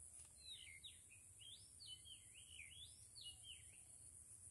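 Faint bird song: a quick run of whistled notes swooping up and down, over a steady high-pitched hiss.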